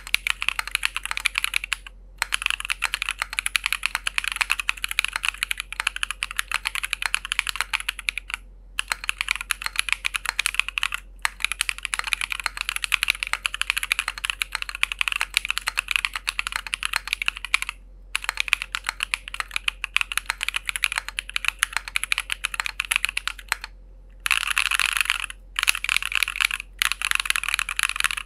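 Fast continuous typing on a Keychron Q10 aluminium gasket-mount mechanical keyboard, a dense run of key clicks broken by a few short pauses.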